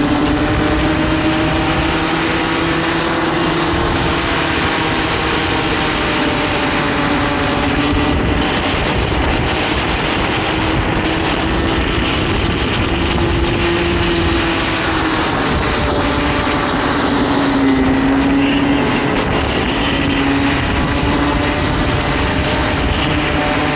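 Comer 50cc two-stroke kart engine running hard on track, its pitch rising and falling slowly as the kart speeds up and slows. A constant rush of wind and road noise lies under it.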